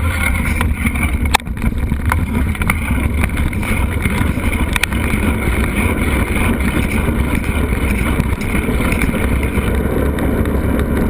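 Steady wind rumble buffeting the camera's microphone while riding, with a few sharp knocks near the start and about halfway through.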